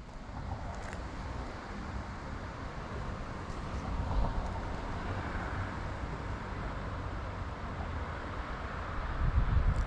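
Steady outdoor background noise: an even hiss over a constant low rumble, swelling louder near the end.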